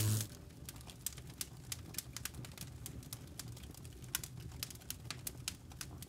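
Faint, irregular crackling clicks over a low rumble, a fire-crackle sound effect under the burning end-card animation; background music cuts off just at the start.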